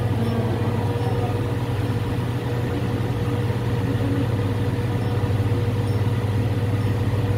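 Steady low machine hum, unbroken throughout, with a fainter steady tone above it.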